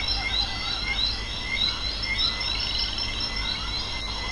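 Night chorus of frogs and insects: repeated high chirps about three a second over steady thin insect trills and a low rumble.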